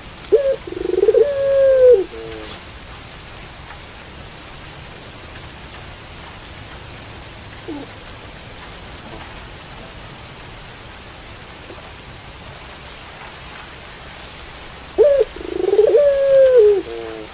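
Puter pelung, a domestic Barbary dove, cooing in a phrase of several low coos at the start and again near the end, with steady rain hissing in the long gap between.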